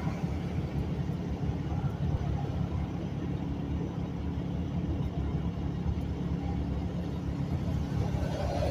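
Steady engine and road rumble heard inside a moving truck's cab at highway speed.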